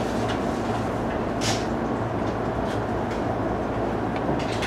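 E233 series electric commuter train running on the rail, heard from the driver's cab as a steady rumble and hum. A few short sharp ticks and hisses cut in now and then, one of them brighter about one and a half seconds in.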